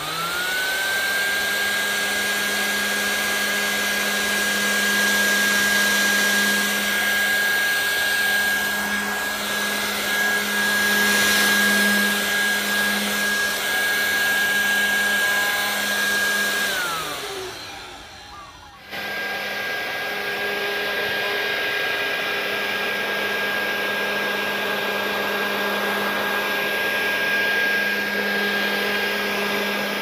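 Homemade vacuum cleaner driven by a 775 DC motor with a 3D-printed fan, spinning up with a rising whine and then running steadily, with a high whine over a rush of air, as it sucks up seeds. About 17 s in it winds down and stops. After a short break it runs steadily again.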